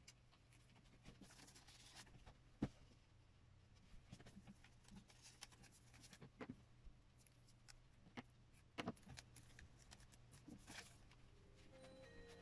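Faint paper handling on a cutting mat: soft rustles of paper being folded and slid, with scattered light taps, the sharpest about two and a half seconds in and a few more near the end, over a low steady room hum.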